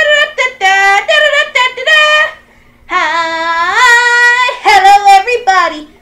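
A high, child-like voice singing a few drawn-out notes that glide up and down, breaking off briefly about halfway through before singing on.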